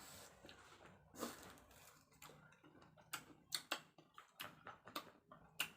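Faint eating sounds from sour tamarind (sampalok) and rambutan: a scatter of small sharp clicks and smacks, coming more often in the second half.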